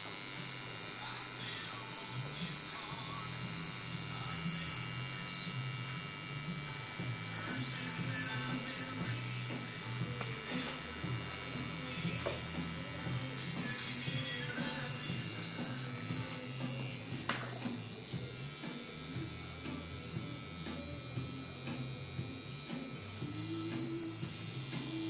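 Electric tattoo machine buzzing steadily while it runs lines on skin.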